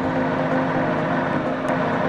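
RC scale semi-truck running with a steady truck-engine sound.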